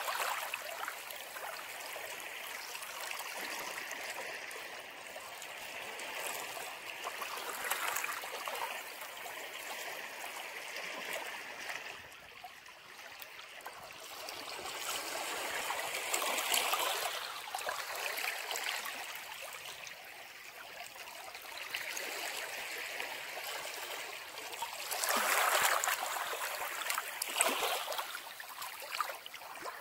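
Ocean waves breaking and washing in: a steady hiss of surf with louder surges every several seconds, the biggest a little before the end.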